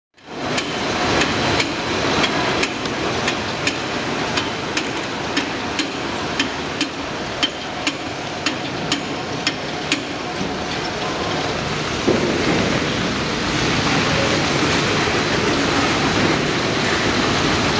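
Synchronous feeding conveyor running, with sharp clicks about twice a second as the crates are fed along. After about ten seconds the clicks stop and only a steady machine running noise remains.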